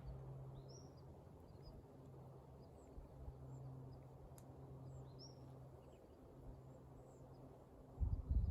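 Quiet outdoor ambience: a steady low hum with a few short, high bird chirps, and a burst of low rumbling near the end.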